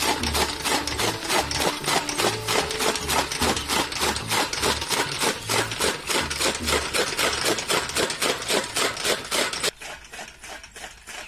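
Bullock-driven gear toka chaff cutter chopping green fodder: a rapid, regular chopping of the flywheel blades, about five cuts a second. Near the end the sound abruptly becomes much fainter.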